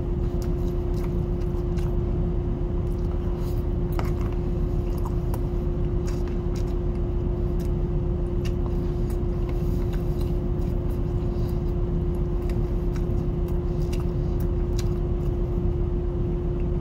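Steady low drone of a ship's machinery heard inside a crew cabin, with one constant hum note held throughout. Light clicks of a spoon and fork against a plate come through it now and then as noodles are eaten.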